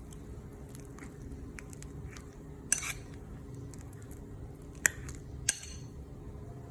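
Metal utensil clinking against dishes: three sharp clinks, the first about three seconds in and two more close together past the middle, with faint lighter clicks between, over a low steady hum.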